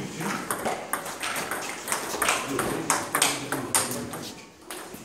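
Table tennis rally: the ball clicking off the paddles and bouncing on the tabletop in a quick run of sharp knocks, a few a second, which stops about four seconds in.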